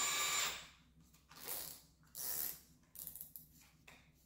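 Keyless ratcheting chuck of a Milwaukee M18 compact brushless drill being hand-tightened onto a spade bit: a burst of ratcheting clicks at the start, then three shorter bursts.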